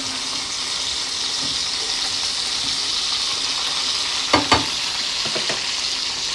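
Beef slider patties sizzling steadily in their grease in a frying pan over low heat. Two sharp taps a little past halfway through, then a couple of fainter ones.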